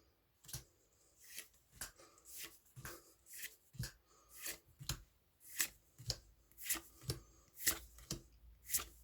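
Pokémon trading cards being flicked one at a time through a freshly opened booster pack, a short swish or snap of card on card about twice a second.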